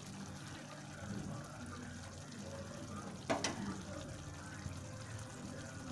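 Mustard fish curry simmering in a steel pan: faint bubbling of the gravy over a low steady hum, with one short knock about three seconds in.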